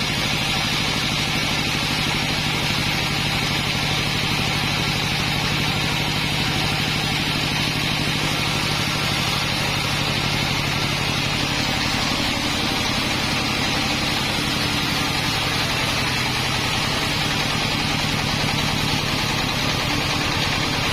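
Sawmill engine running steadily at an even speed.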